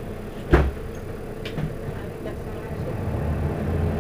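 Mercedes-Benz Citaro facelift city bus engine idling, with one sharp knock about half a second in. The engine's low rumble grows louder over the last second or so.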